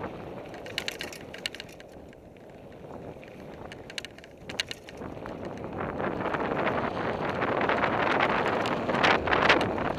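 Fuji Thrill mountain bike rolling fast down dirt singletrack: tyre noise on the dirt and wind buffeting the microphone, with frequent clattering rattles from the bike. Quieter for a few seconds, then louder and rougher from about halfway.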